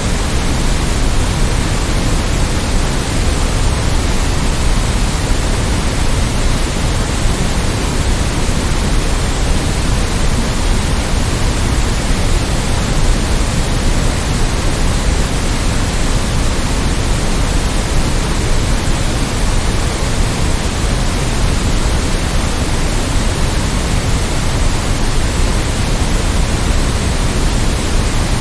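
Steady, unchanging hiss of generated white noise for sleep, even across all pitches with a little more weight in the low end.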